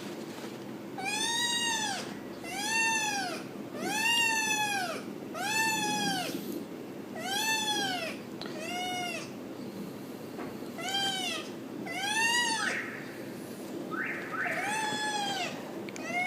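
Domestic cat meowing again and again, about ten drawn-out meows a second or so apart, each rising and then falling in pitch, over a steady low hum.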